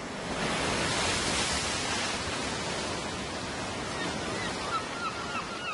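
Surf washing onto a sandy beach: a steady rush that swells in the first couple of seconds. From about four seconds in, a quick run of short, faint chirps sits on top of it.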